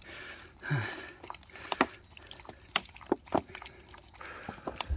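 A Jindo dog lapping water from a small travel bowl: a run of short, irregular wet clicks and splashes of tongue against water.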